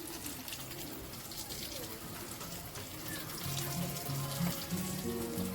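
A soft, steady hiss, like running water or frying, with background music and its low repeating notes coming in about halfway through.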